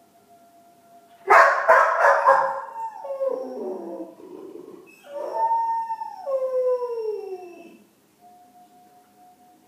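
Dog left alone, barking sharply a few times about a second in, then howling twice in long calls that slide down in pitch: distress vocalising typical of separation anxiety.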